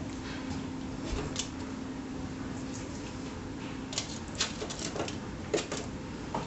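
Aluminium foil crinkling and light clicks and taps as raw chicken thighs are pressed into a foil-lined air fryer basket, the sharper crackles coming in the second half. Under them is a low steady hum that stops about four seconds in.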